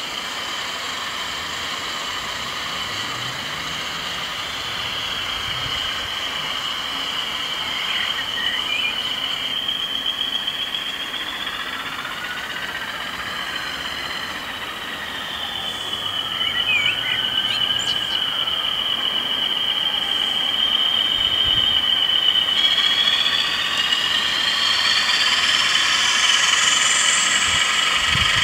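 Model railway goods train of open wagons running along the track with a steady high-pitched squeal. In the last few seconds several high tones rise in pitch.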